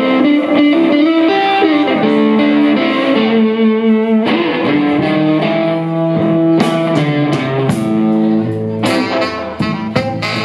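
Live band music led by a semi-hollow electric guitar playing a melody of held notes over a bass guitar, with drum and cymbal strikes coming in about halfway through.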